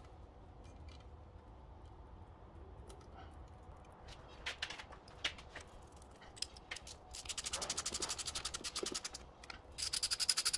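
A few scattered metallic clicks and taps, then a ratchet wrench clicking rapidly in two runs of about ten clicks a second as Allen-headed bolts are wound in.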